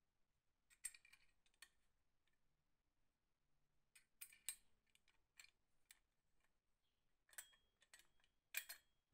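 Small metallic clicks and taps, about a dozen, as a small steel pin is fitted into the tube of a steel hatchet head. They come in three clusters: about a second in, in the middle, and near the end.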